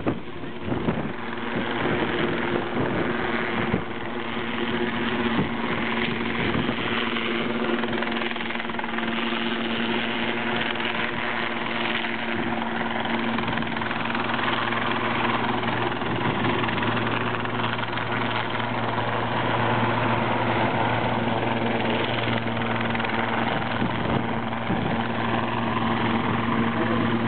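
Japan Coast Guard helicopter hovering, its rotor and turbine engines running steadily with a constant hum.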